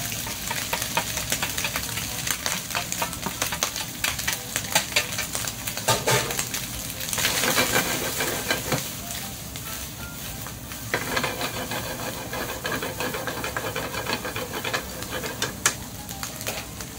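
Bacon and sliced mushrooms sizzling in a nonstick frying pan, stirred and tossed with wooden chopsticks that click and scrape against the pan; the clicking thins out over the last third.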